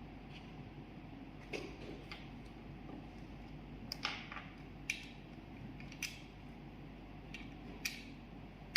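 Scattered small clicks and taps of hard plastic being handled, from Amaxos AE25 wireless earbuds and their case or packaging. There are about six sharp clicks at uneven intervals over a low steady hum.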